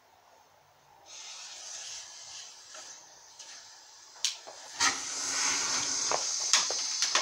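A lit firework set on a CRT television. A hiss starts about a second in, two sharp cracks come just after four seconds, and then the firework erupts into a loud, steady hiss of spraying sparks broken by further cracks.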